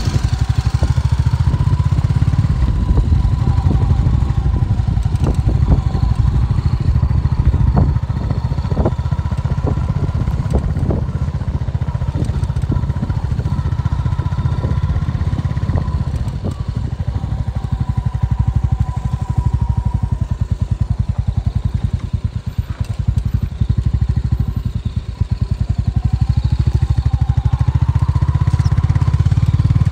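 BMW G 310 GS single-cylinder motorcycle engine running as the bike is ridden off-road, its pitch drifting up and down with the throttle and rising again near the end. A few short knocks come through in the first half.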